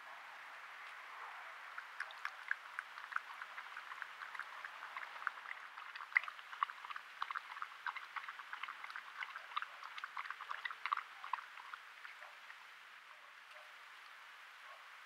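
Coyote lapping water from a bowl: quick, irregular wet clicks, several a second, starting about two seconds in and dying away a few seconds before the end.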